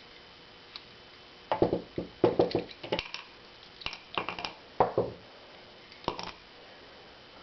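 A screwdriver and metal padlock parts of an American Lock 700-series padlock clicking, scraping and tapping in several short clusters as the lock is taken apart to get at its core.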